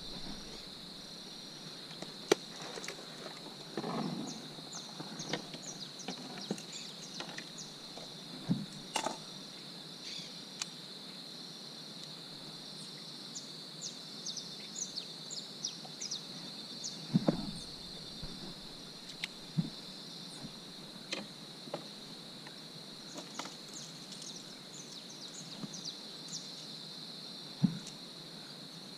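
A steady, high-pitched insect chorus, with short bird chirps scattered over it and now and then a brief knock or rustle.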